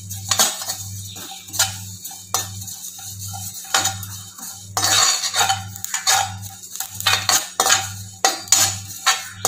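Metal slotted spatula scraping and tapping around a dry kadai, stirring cumin seeds as they dry-roast for spice powder. Irregular scrapes come about once or twice a second, over a low hum that pulses evenly.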